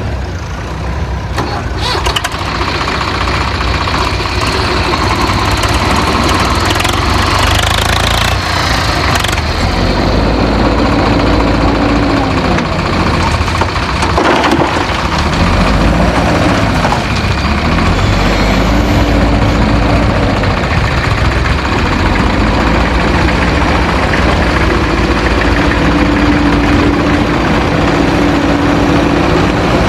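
Heavy diesel earthmoving machinery running steadily, its engine revving up and down several times.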